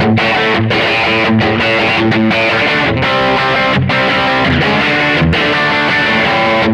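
ST-shaped electric guitar fitted with Häussel TE Broad-style pickups and an underwound ST middle pickup, played with a distorted tone: picked chords and notes in a continuous passage.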